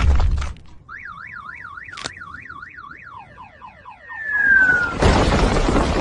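Cartoon sound effects. The tail of a heavy crash comes at the start, then an alarm-like tone warbles rapidly up and down, about four times a second, and gives way to a run of short falling chirps. Next comes a falling whistle, and about five seconds in a loud crashing rumble as the cliff collapses.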